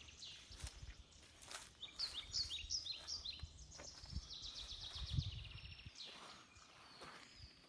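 Songbirds singing outdoors: repeated high chirps and quick trilled phrases, over a low rumble that stops about six seconds in.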